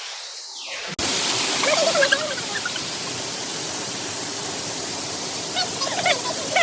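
Steady rush of a waterfall, starting abruptly about a second in after a quieter muffled stretch, with faint voices now and then.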